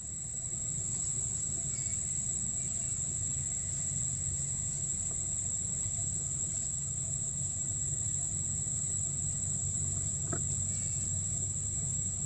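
Steady, high-pitched drone of insects such as crickets or cicadas, over a low, even background rumble.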